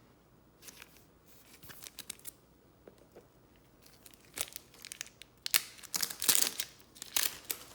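A trading-card pack wrapper being torn open and crinkled, with light handling of the cards; soft crinkles at first, then louder sharp crackling through the second half.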